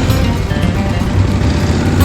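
Background music, with an engine running steadily underneath.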